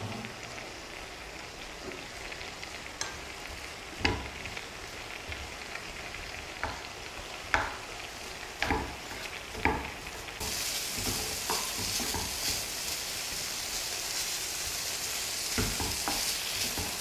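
Crumbled mawa (khoya) sizzling as it is roasted in a hot pan and stirred with a wooden spatula, with occasional knocks of the spatula against the pan. The sizzle gets louder and brighter about ten seconds in.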